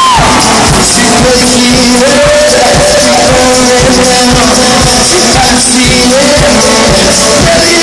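Live rock band playing loudly, a male lead voice singing long held notes over drums and guitars, heard from among the audience.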